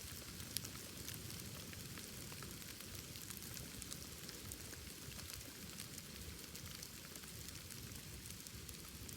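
Wood bonfire crackling, a steady hiss dotted with small snaps and one sharper pop about half a second in.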